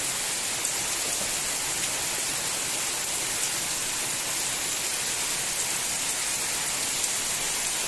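Torrential rain pouring down, an even, unbroken hiss.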